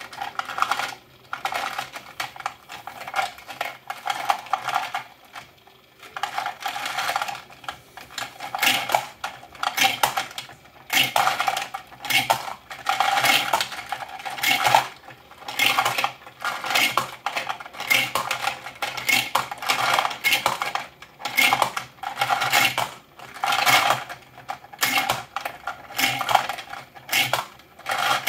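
3D-printed 9mm bullet feeder running: copper-plated bullets tumble and clink against each other and the turning plastic plate as they are picked into its pockets, in clattering bursts about once a second. A faint low motor hum runs underneath.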